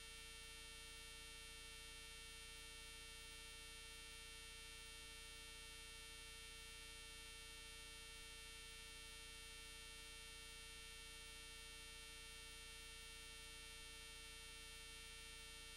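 Near silence: a faint, steady hiss and hum that never changes.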